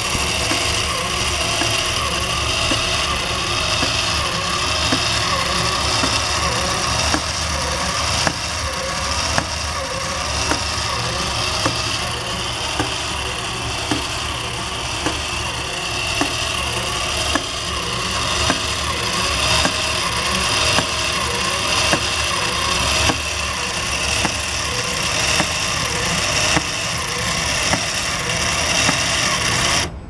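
Motorized Meccano model pile driver running: a small electric motor whirs steadily through its belt and gear drive, with a short click about once a second.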